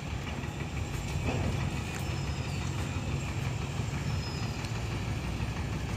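Heavy diesel engines of trucks or earth-moving machines running steadily: a low, even rumble, with a few faint high chirps over it.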